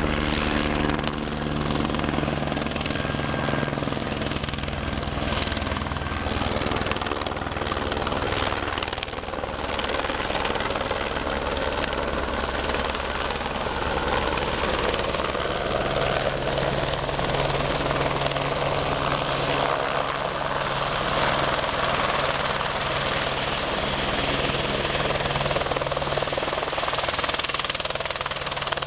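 Helicopter flying in and hovering low to land: a steady rotor beat over the engine's running noise.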